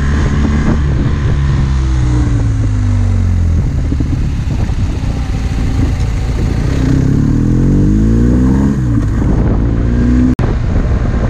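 Motorcycle engine heard from on board over wind rush: the engine note falls over the first few seconds as the bike slows, then climbs in pitch again as it accelerates about seven to nine seconds in. The sound cuts out for an instant near the end.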